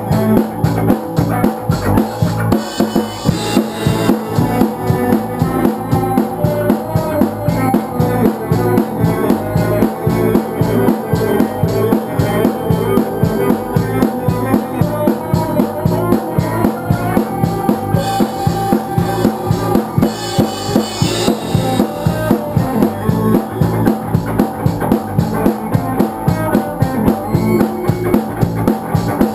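Stoner rock band playing live: a drum kit keeps a steady, dense beat under the rest of the band, with bright cymbal washes about 3 and 20 seconds in.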